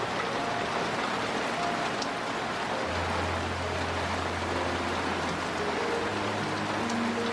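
Steady rain falling, an even, constant hiss, with faint background music tones beneath it.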